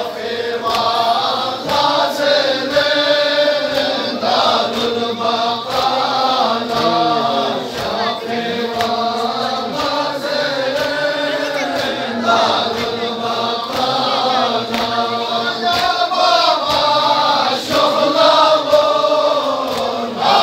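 A Balti noha (Shia lament) chanted by a male reciter, with the congregation of men singing along in chorus. Under the singing runs a steady rhythm of hand slaps, about every two-thirds of a second, the mourners' chest-beating (matam).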